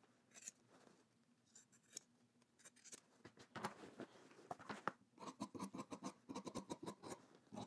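Scissors snipping the seam corners of a denim waistband, faint short blade clicks, sparse at first and coming more thickly in the second half, mixed with the rustle of the denim being handled.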